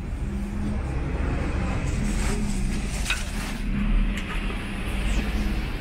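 Road traffic: motor vehicle engines running close by, with a steady low hum, swelling to its loudest about four seconds in as a vehicle goes past, over general street noise and a few light knocks.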